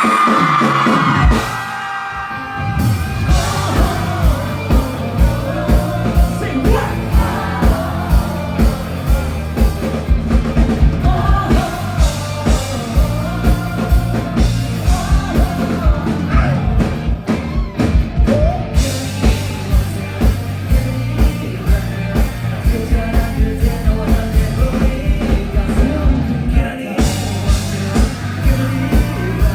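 Live rock band performing: electric guitars and bass over a steady drum beat, with a male lead vocal singing throughout and a held, shouted high note right at the start.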